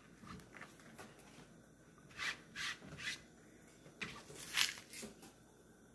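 Faint, soft scraping strokes, about five spread over a few seconds, as the skin is scraped off a piece of fresh ginger root.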